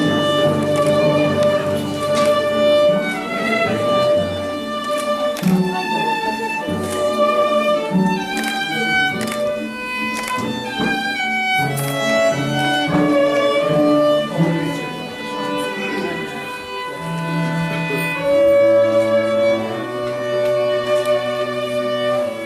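Bowed string music, a violin melody over lower strings, playing in long held notes.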